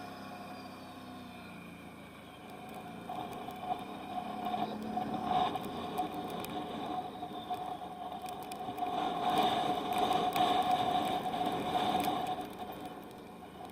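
Can-Am Outlander 1000R XMR ATV's V-twin engine running under way, building up twice to its loudest about nine to twelve seconds in, then easing off near the end.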